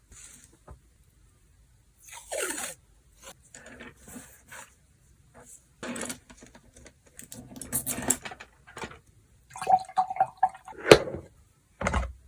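Water splashing and dripping in a small cup as a paintbrush is rinsed, in short irregular bursts with small knocks and clinks in between. A sharp knock comes about eleven seconds in.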